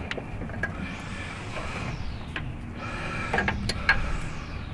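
Hand tools working on an old car engine under the hood: scattered sharp metal clicks and clinks, about half a dozen, as a wrench works a part loose. Two swells of rushing noise rise and fade behind them.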